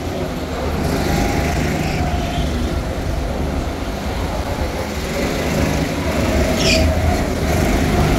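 Several go-karts' engines droning steadily as the karts run around the track, over a low rumble, with a brief high squeal near the end.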